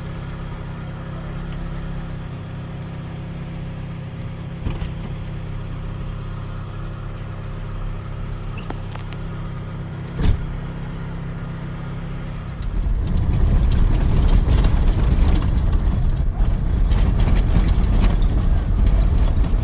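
A vehicle engine idling with a steady low hum, with a couple of short knocks. About thirteen seconds in it grows louder and rougher as the vehicle moves off.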